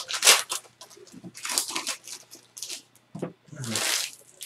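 Trading-card pack wrappers and cards being handled: tearing and crinkling in a string of short, irregular bursts.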